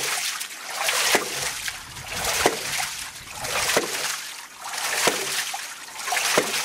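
Papa Pump hydraulic ram pump beating evenly: its valve knocks shut about once every 1.3 seconds, five times, with a rush of water spilling from the exhaust between knocks. The valve has been opened up, which makes the beat slower and deeper and pumps more water.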